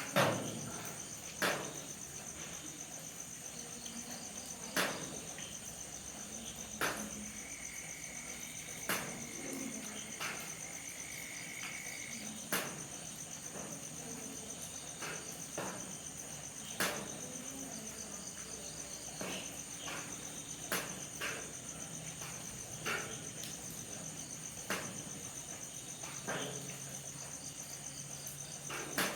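Night crickets trilling steadily in a high, unbroken chorus, with single water drips landing irregularly every second or two, some with a quick falling plink.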